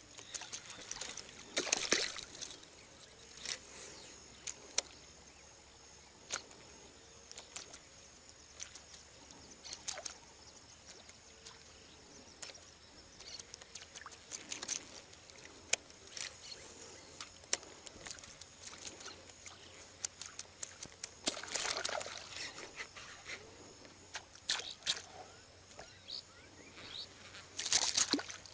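Surface fishing lure being twitched across calm water, giving small intermittent splashes and sloshes. Near the end comes a louder splash as a fish strikes at the lure.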